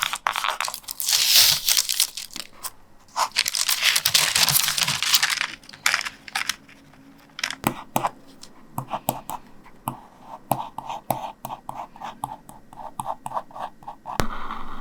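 Paper being handled while a sketch is transferred onto a linoleum block: two longer tearing, rustling strokes in the first five seconds, then many light taps and scratches, and a sharp click near the end.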